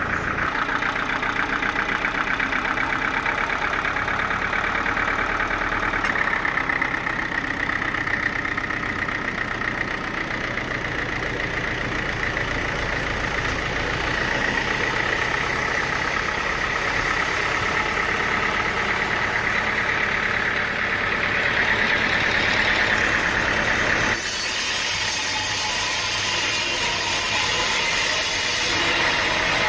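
A sawmill's engine running steadily. About two-thirds of the way through, the sound changes abruptly to a brighter, hissier tone.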